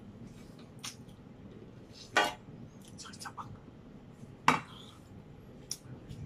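Cutlery clinking against a plate: two sharp, ringing clinks, about two seconds in and again about two seconds later, with a few lighter taps and clicks between them.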